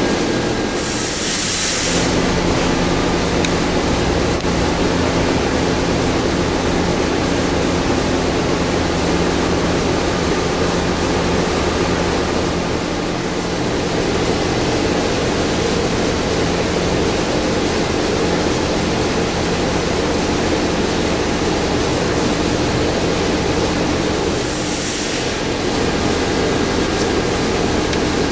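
Steady workshop background noise: a constant rushing hum with several steady low tones, like ventilation fans or running machinery. A brief high hiss comes about a second in and again near the end.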